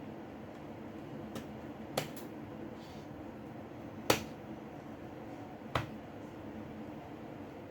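A few sharp, isolated clicks of small tools and phone parts being handled during smartphone disassembly, the loudest about four seconds in, over a steady background hum.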